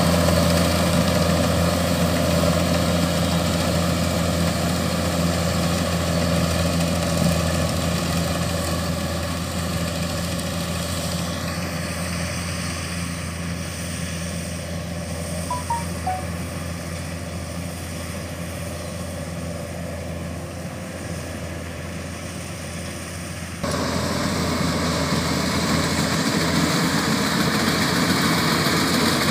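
Kubota DC-105X combine harvester running steadily while cutting rice, a low engine hum under a haze of machinery noise, growing fainter as it moves away. About two-thirds of the way in, the sound jumps abruptly louder, with the harvester close again.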